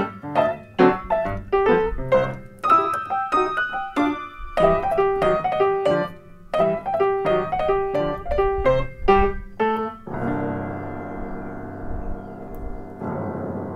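Piano playing a ragtime tune in quick separate notes. About ten seconds in, a chord is held and left ringing, and a second chord is struck near the end and rings on.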